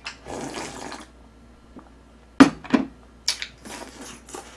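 Slurping jjamppong broth from a ceramic bowl. About two and a half seconds in come a couple of sharp knocks as the bowl is set down on the table, followed by another short slurp.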